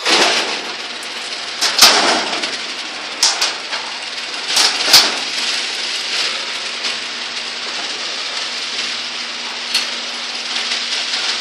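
Craftsman half-horsepower garage door opener running the door through its travel: a steady, noisy run with several sharp clanks a few seconds apart.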